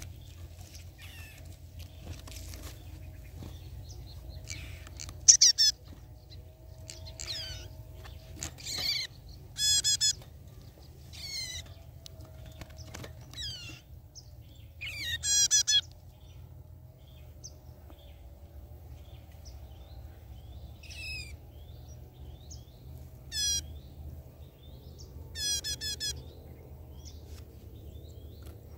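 Songbirds calling: short, quickly warbled high phrases repeated every few seconds, some loud and close, others fainter.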